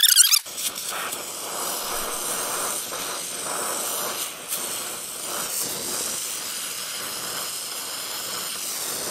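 Acetylene torch flame hissing steadily while bronze filler rod is melted onto hot steel in brazing. A brief high squeal right at the start.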